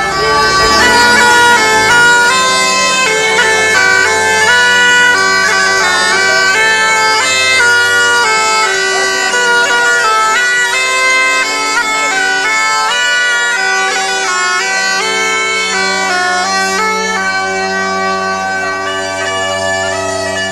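Italian zampogna bagpipes playing a lively stepping melody over steady held drones.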